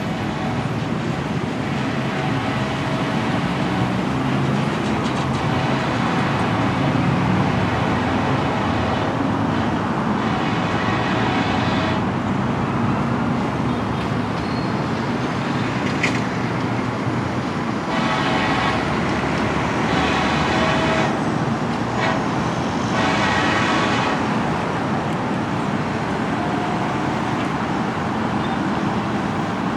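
EMD SD70ACe diesel-electric locomotives running with a steady engine rumble, while a locomotive air horn sounds four times: one long blast about a third of the way in, then three more blasts in close succession in the second half.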